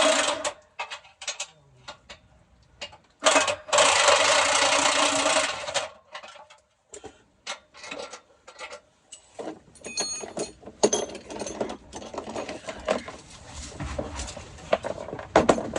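A power tool runs steadily for about two and a half seconds, a few seconds in, amid scattered clicks and knocks of hand tools on metal while a transmission is removed.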